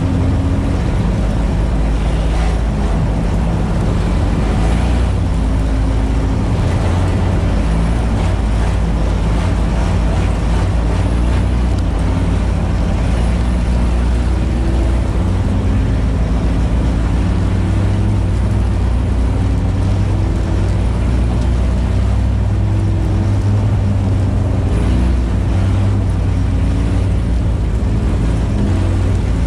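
Four-cylinder race car engine heard from inside the stripped cabin, driven hard, its pitch rising and falling over and over as the driver works the throttle.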